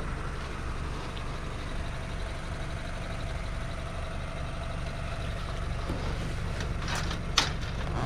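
Steady low rumble of an idling vehicle engine, with two sharp knocks near the end, the second the loudest.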